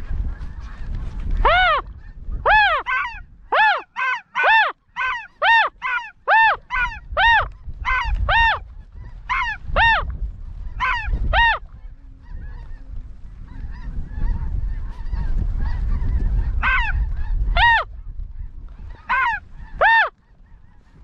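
A string of loud, clear goose honks, each a short call rising and falling in pitch, coming one or two a second for the first half, then a handful more near the end, over a low rumble of wind on the microphone.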